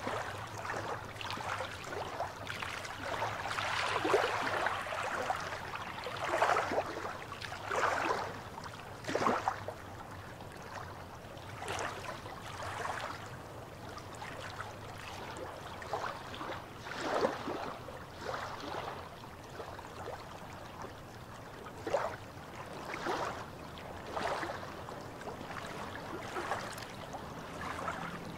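Small waves lapping and splashing against shoreline rocks, in irregular splashes a second or several seconds apart with a softer wash of water between them.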